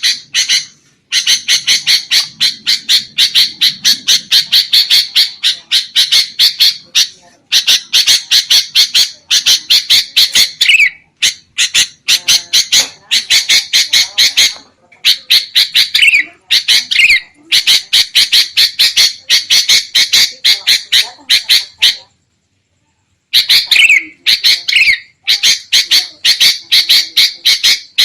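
Sooty-headed bulbuls (kutilang) in an agitated, noisy chatter played as a trapping lure call: fast runs of sharp, harsh notes, about four or five a second, in bursts of several seconds, with a few lower down-slurred notes mixed in. The sound cuts out completely for about a second, about 22 seconds in.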